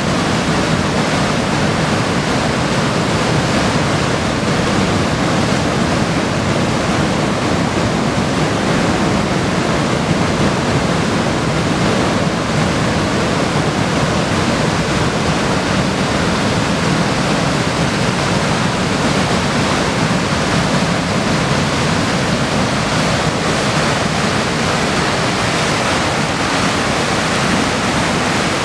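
Loud, steady rush of a swollen river in flood pouring over a rocky waterfall and churning through whitewater rapids.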